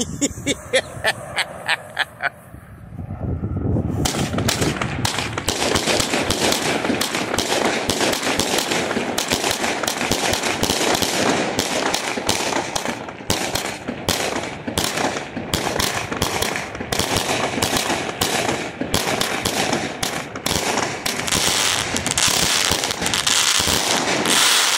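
A 36-shot, 200-gram aerial repeater firework cake going off. A short run of about eight sharp pops comes in the first two seconds, then from about four seconds in a dense, rapid barrage of shots and bursts runs until it stops near the end.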